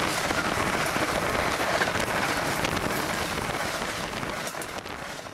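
A passing train's wheel-on-rail noise, a dense rush with many small rattling clicks, fading away over the last second or two.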